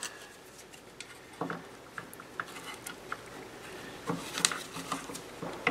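Scattered light clicks and brief scrapes of a small screwdriver prying at the plastic housing of an Espar D5WSC coolant heater's circulating pump, working the snap-held pump loose.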